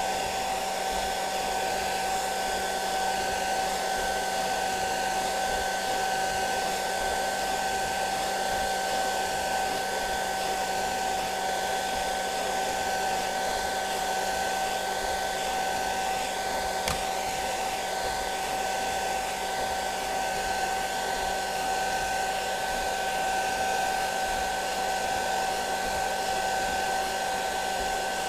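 Hair dryer running steadily on a constant whine, blown over the tracing paper as it feeds out of an inkjet printer to dry the ink.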